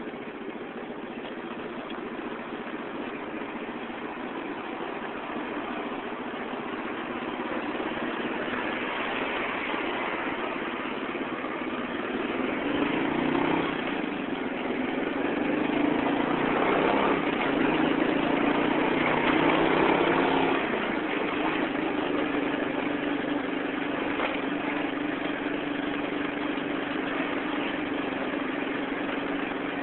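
Vehicle engines running in slow, congested street traffic: a continuous engine hum that grows louder in the middle and shifts in pitch, then settles on a steady engine tone for the second half.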